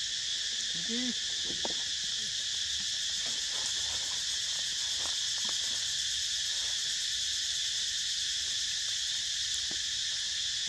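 Steady, high-pitched chorus of forest insects, unbroken throughout, with a brief low voice-like call about a second in and a few faint ticks.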